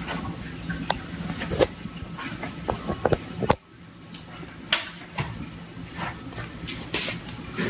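Cardboard box scraping and rustling against a table as a cat shifts about with its head inside it, with irregular small knocks and clicks.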